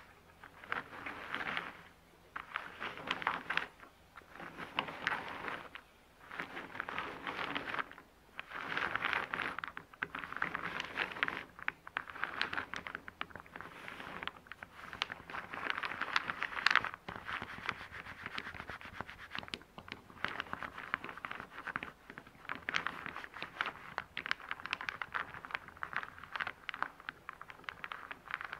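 Small round wooden discs scraping and clicking against one another and the board as hands sweep and shuffle them. The sound comes in repeated surges with short pauses, then turns into a near-continuous clatter in the second half.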